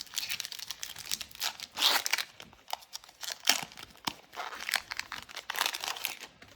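Pokémon booster pack's foil wrapper crinkling and being torn open, an irregular run of sharp crackles and rustles.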